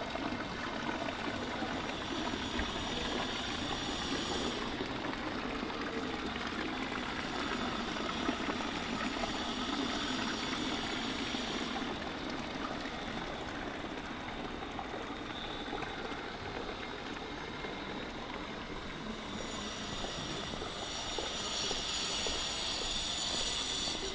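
Steady rushing of water, with a higher hiss swelling up three times, the last near the end.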